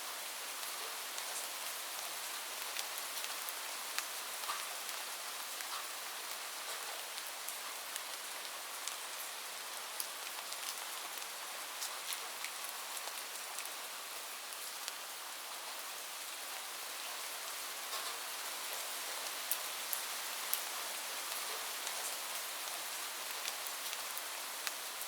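Steady rain falling on a roof: a dense, even hiss with many single drops ticking sharply through it.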